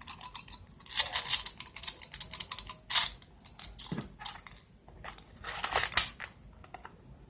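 Small plastic airsoft BBs clicking and rattling as they are loaded into a spring airsoft pistol's magazine, in clattering bursts, the loudest about one, three and six seconds in.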